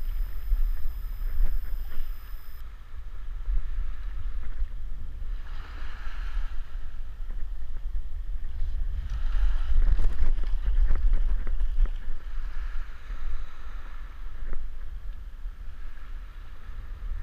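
Wind buffeting the microphone as a steady low rumble, over shallow surf water sloshing, which swells into louder splashing a few times.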